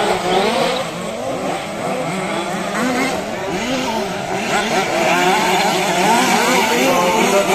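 A pack of 1/5-scale petrol two-stroke RC car engines racing together. Their overlapping pitches keep rising and falling as the cars rev and back off around the track.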